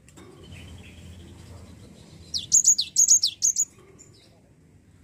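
Cinereous tit (gelatik batu) singing a quick phrase of about six sharp, high notes, each sweeping downward, roughly halfway through.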